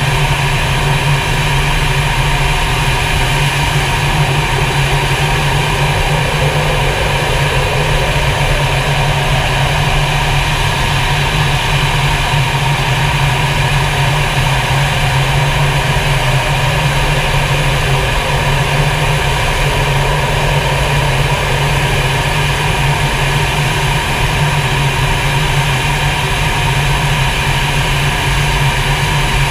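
Steady cockpit noise of a fighter jet in flight, heard inside the cockpit: a constant rumble and rush of engine and airflow with several steady whining tones on top, unchanging throughout.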